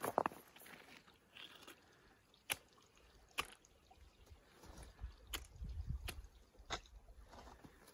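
Scattered footsteps crunching on snow, a sharp step every second or so, with low wind rumble on the microphone from about five seconds in.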